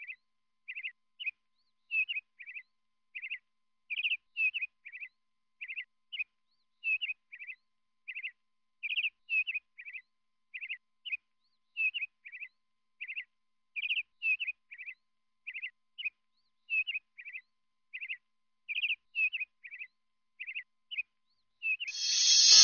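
A small bird chirping over and over in short high notes, in twos and threes, with dead silence between them. A louder sound swells in just at the end.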